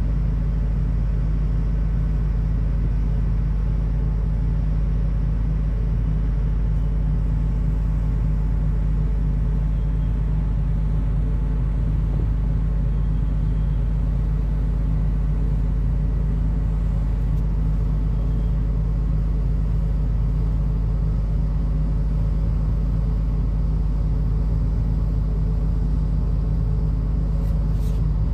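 Steady low ship's engine drone, even in level throughout, with faint steady tones riding above the rumble.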